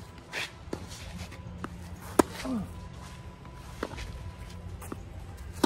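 A tennis rally: sharp pops of balls struck with rackets and bouncing on the court. The loudest hits come from the near racket about two seconds in and again at the end, each with a short falling twang. Fainter hits and bounces from the far side fall in between, and shoes scuff on the court now and then.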